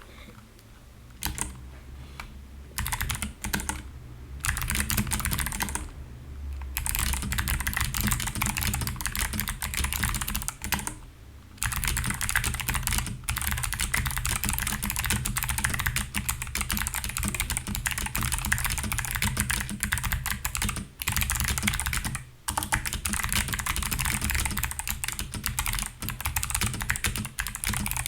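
Fast typing on a mechanical keyboard with clicky switches: a rapid stream of key clicks, coming in short bursts at first and running almost without a break after about seven seconds, with a few brief pauses.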